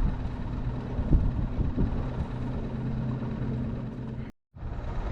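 A steady low motor hum under low rumbling wind noise on the microphone, with a few soft low thumps. The sound cuts out completely for a moment a little past four seconds in.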